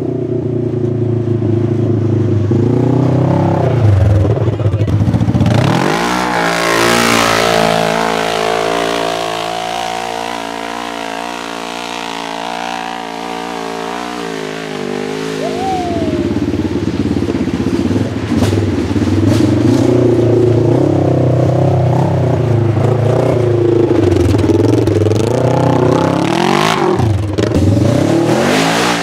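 Polaris RZR XP 1000 parallel-twin engine in an off-road buggy, running under load while driving off-road, the revs falling and rising with the throttle. About 3 to 6 seconds in and again near the end it drops and then revs up, and in between it holds a steady pitch for several seconds.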